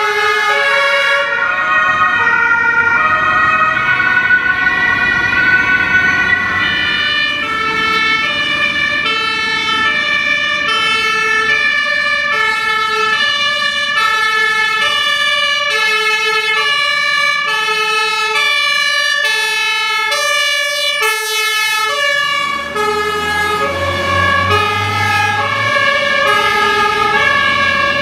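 Several German two-tone emergency vehicle sirens (Martinshorn) sounding together, each alternating between a high and a low note about twice a second and out of step with the others, from ambulances and a fire engine. A low engine rumble rises under them about four-fifths of the way through.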